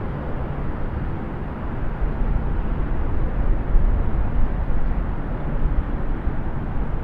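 Distant highway traffic: a steady, low rumble of passing vehicles and tyre noise, swelling slightly a couple of seconds in.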